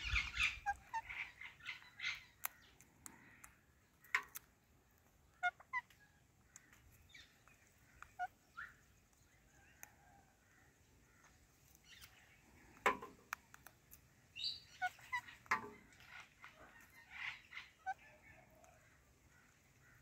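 Indian ringneck parakeets giving scattered short chirps and squawks, with a few sharp clicks in between, the loudest about two thirds of the way through.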